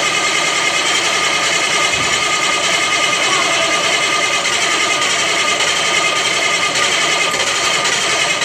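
Freshly rebuilt Caterpillar C-12 inline-six diesel running at a steady speed on its first start after the rebuild.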